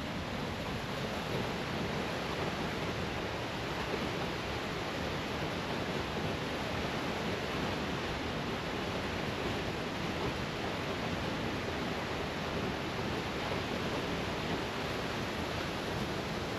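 Steady rush of water from a waterfall, an even, unbroken noise with no separate sounds standing out.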